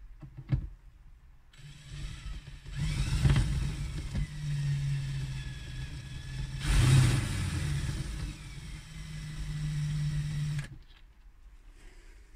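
DeWalt cordless drill-driver running, driving screws through the fridge's mounting flange into the plywood cabinet. The motor runs for about nine seconds, gets louder twice as the screws bite and seat, then stops.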